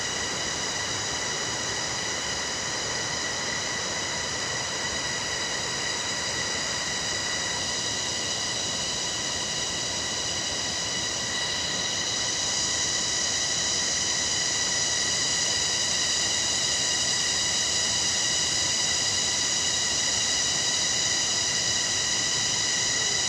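A steady, high-pitched buzzing drone of forest insects, unbroken throughout and a little louder about halfway through.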